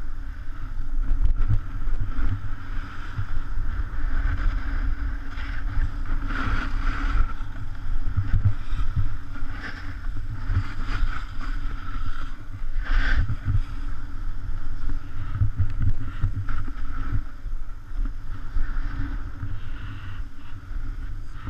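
Skis scraping and sliding over packed snow during a fast downhill run, under a steady low rumble of wind buffeting the camera's microphone, with a few brief louder swells.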